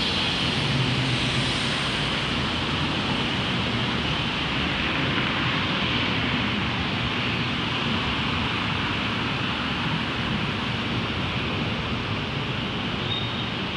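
Steady wash of distant city traffic noise, with a faint low hum early on and no distinct events.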